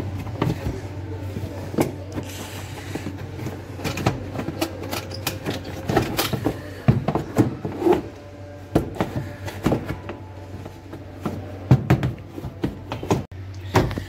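Scattered clicks and knocks of plastic parts being handled and fitted by hand into a semi-automatic washing machine's drain valve assembly, over a steady low hum.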